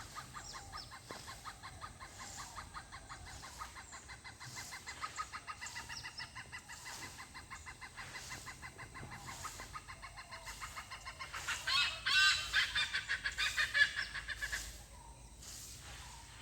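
Birds calling in a fast run of short repeated notes. The calls grow louder and busier about three-quarters of the way through, then die away shortly before the end.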